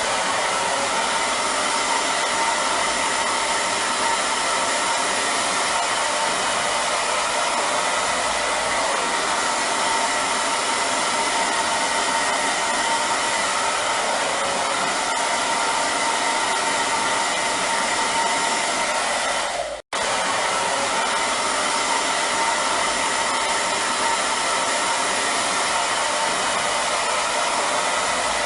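Hair dryer running steadily: a constant airflow rush with a faint motor whine. It cuts out for an instant about twenty seconds in, then resumes unchanged.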